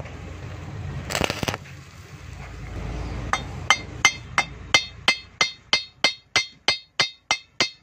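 A steel bar strikes repeatedly on the metal of a freshly welded cylinder head, about three even, ringing metallic blows a second, starting a little past the middle. A short burst of noise comes about a second in.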